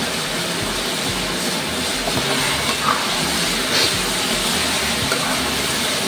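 Pork intestine and pineapple in a dark sauce simmering in a wok, a steady sizzling hiss, with a few soft scrapes of a spatula stirring it from about two seconds in.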